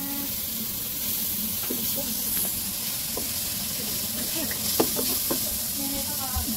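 Ground meat sizzling as it fries in an aluminium pot, stirred with a wooden spatula that scrapes and knocks against the pot several times, most sharply about five seconds in.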